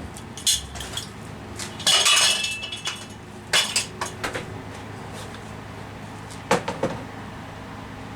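Hard metal items clinking and clattering against each other a few times, one of them briefly ringing, over a steady low hum.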